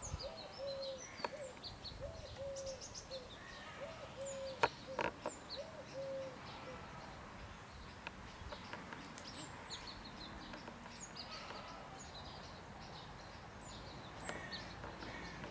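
Outdoor birdsong: a short, low hooting call repeated about twice a second for the first six or seven seconds, over scattered high chirps of small birds. Two sharp clicks sound about four and a half and five seconds in.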